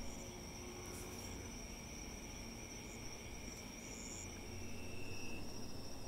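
Night insects, crickets, trilling steadily as several continuous high tones at once, one more joining near the end. A low rumble swells briefly about five seconds in.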